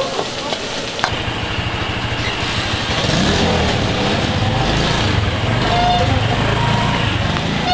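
A vehicle engine running close by with a steady low hum, growing louder from about three seconds in.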